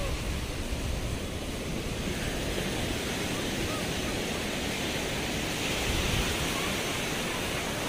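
Ocean surf breaking and washing up the beach in a steady rush, swelling slightly about six seconds in, with wind buffeting the microphone.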